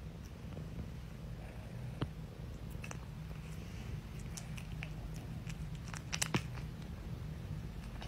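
Cat purring steadily close up, a low continuous rumble, with a few small clicks about two seconds in and again around six seconds in.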